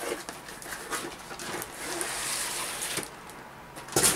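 Cardboard packaging being handled: a boxed model slid out of a cardboard shipping carton, with small rustles and a stretch of scraping cardboard-on-cardboard, then one sharp knock near the end.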